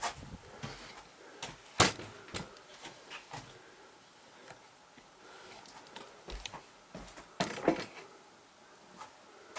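Irregular knocks and clunks of wood and tools being handled, with one sharp knock about two seconds in and a short cluster of knocks near the end.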